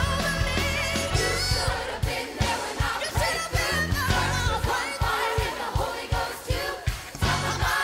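Live church worship music: voices singing over a band with a steady beat.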